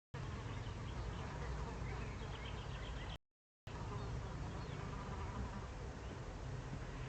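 Steady buzzing hiss from an eagle owl nest webcam's faulty audio feed, cutting out to dead silence twice for about half a second, with faint high chirps in the background.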